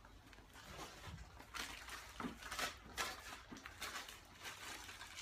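Faint, irregular rustling and light clicks of a new lawnmower air filter being handled and unpacked.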